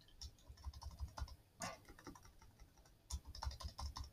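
Faint, irregular keystrokes on a computer keyboard, with a quicker run of keys in the last second.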